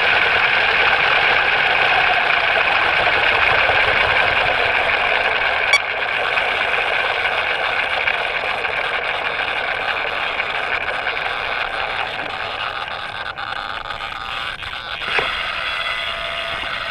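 Electric RC helicopter's rotor and motor whirring while the machine sits on the ground, slowly winding down and getting quieter, with a sharp click about six seconds in and another near the end.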